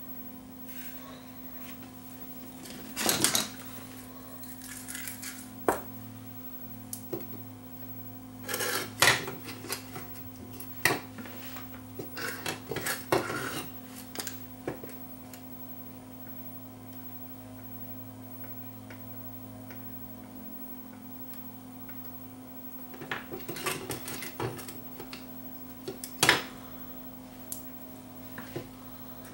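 Small clatters and taps of soldering tools being handled on a workbench: the soldering iron and a spool of solder picked up and set down during a touch-up of an LED joint. They come in short clusters, a few seconds in, around the middle, and again near the end, over a steady low hum.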